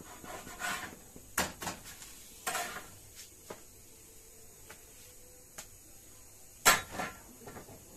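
Metal spatula knocking and scraping against a tawa and a plate as a roti is lifted off the griddle: a series of short clanks and taps, some briefly ringing, the loudest near the end.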